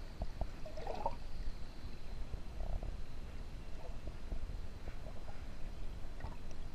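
Underwater sound picked up by a submerged camera in shallow water: a low, steady rumble with scattered faint clicks and two short gurgles, about a second in and near the three-second mark.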